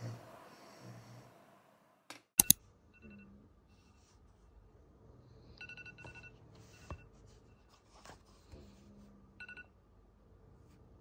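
iPad alarm giving brief, soft electronic beeps in a few short bursts, with faint taps of a finger on the screen. A couple of sharp clicks come about two seconds in.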